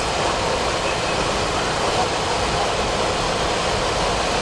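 Steady rush of airflow and jet engine noise inside a Boeing 737-400 flight deck on short final approach, with landing gear down and flaps at 30.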